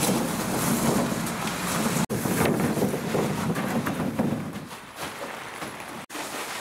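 Wind buffeting the microphone: a steady rushing noise that drops out abruptly for an instant twice, at about two seconds and about six seconds in.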